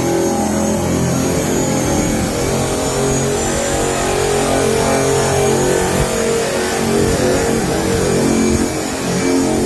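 Electric drum sander's motor running continuously, its pitch shifting now and then as it works.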